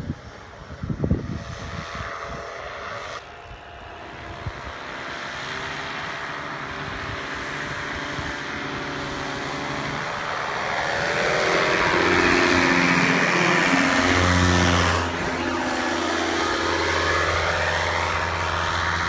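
Paramotor engine and propeller flying low past, growing steadily louder, then dropping in pitch about fifteen seconds in as it passes, and running on steadily. Gusty wind on the microphone is heard at the start.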